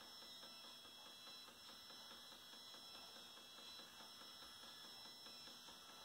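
Stepper motors driving a Bresser telescope's mount, heard faintly as a steady high-pitched whine.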